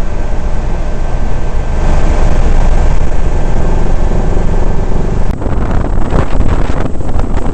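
Helicopter in flight heard from inside the cabin: steady engine and rotor noise with a thin, steady high whine. About five seconds in it cuts abruptly to wind buffeting the microphone and water spray from a small boat running fast.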